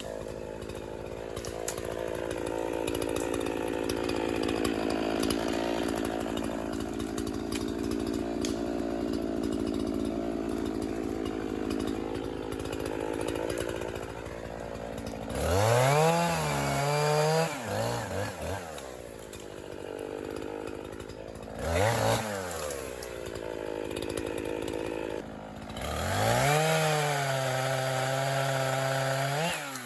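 50cc gas chainsaw cutting into wood under load for about fifteen seconds, then revved up high, let down, blipped once, and revved high again near the end.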